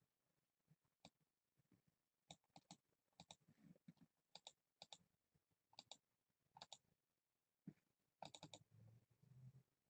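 Faint clicking at a computer: about a dozen short, sharp clicks at irregular intervals, several coming in quick pairs or triplets.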